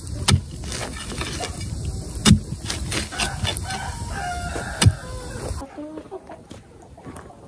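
Chickens clucking and a rooster crowing, over a steady hiss, with three sharp knocks about two seconds apart standing out as the loudest sounds.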